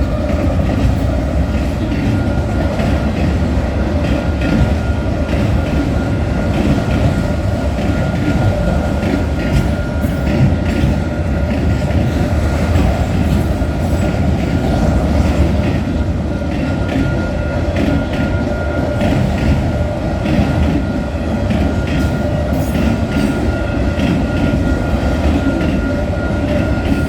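Freight train cars rolling steadily past close by: a heavy rumble of steel wheels on rail with repeated clicking over the rail joints, and a thin, steady high whine running through it, like wheel squeal.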